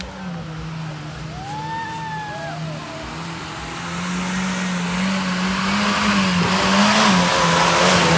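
Small 4x4 off-roader's engine running steadily under load as it ploughs through mud, growing louder as it approaches. A wash of mud and tyre noise builds over the second half.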